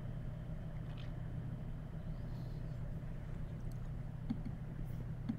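Room tone: a steady low hum, with a few faint clicks in the second half.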